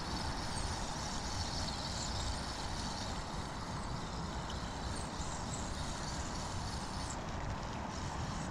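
Steady outdoor background noise: a low rumble under an even hiss, with a few faint, short, high chirps.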